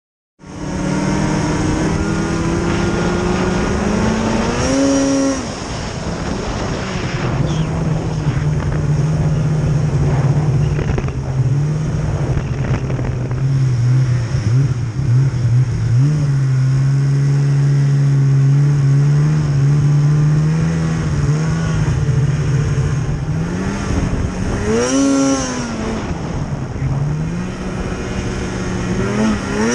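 Snowmobile engine running under way at steady throttle, its pitch climbing and dropping back as it revs up about five seconds in and again near the end.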